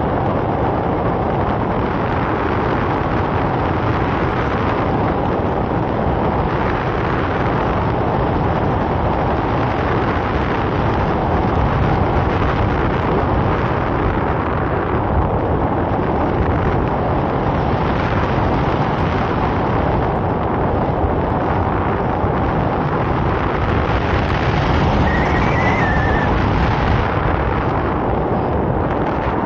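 Steady wind rushing over the microphone of a camera carried in paraglider flight. A faint short chirp comes in near the end.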